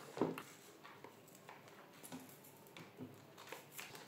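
A few faint clicks and taps of hands handling the plastic chassis parts and wiring of an RC truck, the clearest one just after the start.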